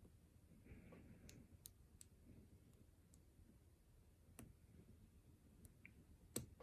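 Faint, scattered clicks of a lock pick and tension wrench working the pins inside a Goal P pin-tumbler lock during picking, with a sharper click near the end.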